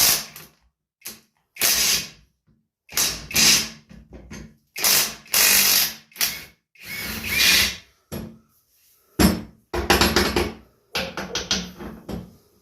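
Power tool run in repeated short bursts against a stubborn bolt, backing fasteners off a 1976 Wizard garden tiller. A quick series of sharp clicks comes near the end.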